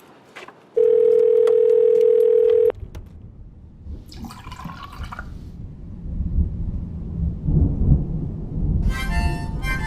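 A loud, steady electronic tone, one pitch held for about two seconds and cut off abruptly, like a telephone dial tone or beep. It is followed by a low rumbling noise that builds through the second half, with a brief pitched sound near the end.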